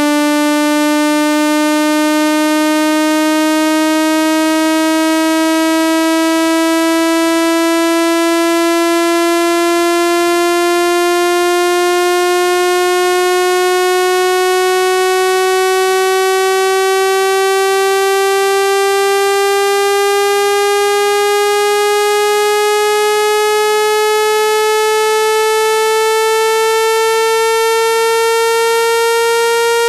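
Synthesized water-eject tone for clearing water from a phone speaker: a loud, buzzy electronic tone with many overtones, gliding slowly and steadily upward in pitch.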